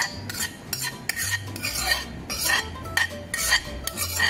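Metal spoon scraping and clinking against a ceramic bowl and a stainless steel mixing bowl as an egg-and-cheese mixture is scraped from one into the other: about a dozen quick, uneven strokes.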